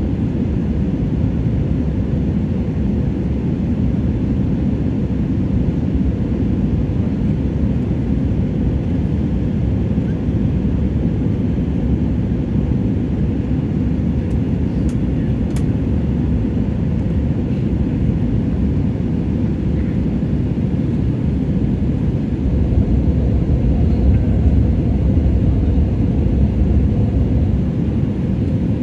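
Steady low rumble of jet airliner cabin noise, engines and rushing airflow, heard inside the cabin at a window seat; the rumble swells a little near the end.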